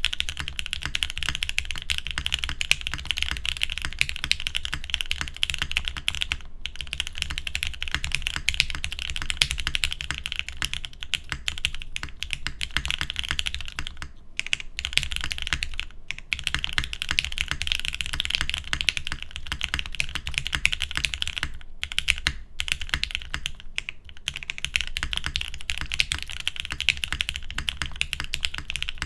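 Mode Sonnet mechanical keyboard with Gateron Black Ink switches being typed on quickly and continuously, a dense run of key clacks broken by a few brief pauses.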